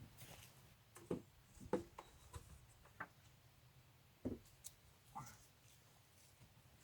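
Faint, scattered knocks and clicks, about six in a few seconds, from handling building materials during wall work.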